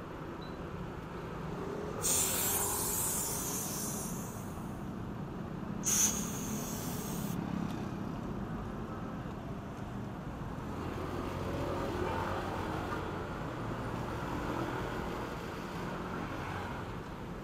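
Compressed air hissing from a tyre inflator's air hose in two bursts: a strong hiss about two seconds in that fades over a couple of seconds, and a shorter one about six seconds in. Steady low traffic rumble underneath.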